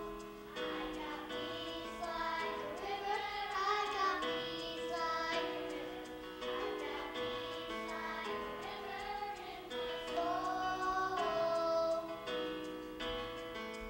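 Children's choir singing, with a woman's voice on a microphone among them, over instrumental accompaniment of long held notes.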